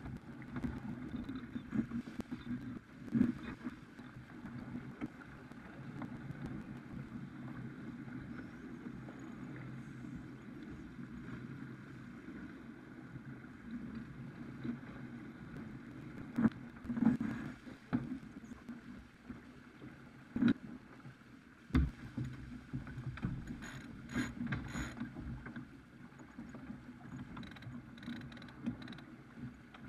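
Farr 280 sportsboat under sail, with a steady rush of water and wind along the hull and several sharp knocks and clicks from gear and crew on deck.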